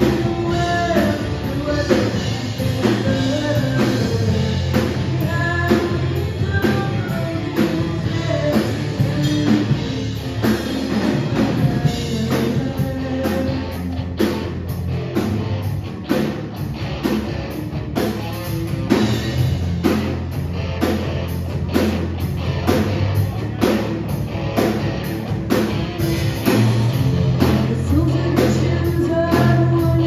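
Live rock band playing: a singer over electric guitar, bass guitar and a drum kit with a steady, busy beat.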